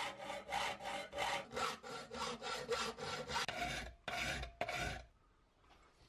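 Hand file rasping along the edge of an aluminium tread plate clamped in a bench vise, in steady back-and-forth strokes about two a second, stopping about five seconds in.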